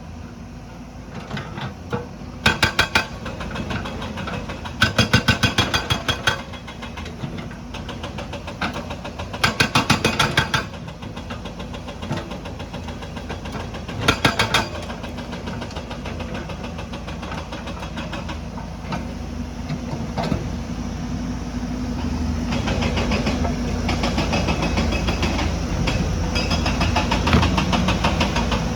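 Diesel engine running steadily, with four short bursts of rapid hammering from a JCB's hydraulic stone breaker in the first half. The engine grows louder over the last several seconds.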